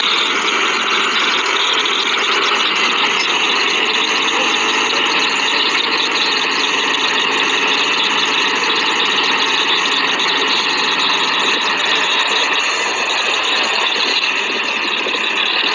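Farm tractor diesel engines running steadily under load, from a tractor bogged down to its axles in soft paddy-field mud.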